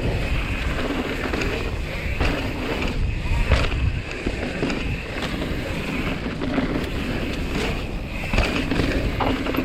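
Mountain bike being ridden fast down a dirt singletrack: wind rushing over the microphone and tyres rolling on hard-packed dirt, with frequent knocks and rattles as the bike hits bumps.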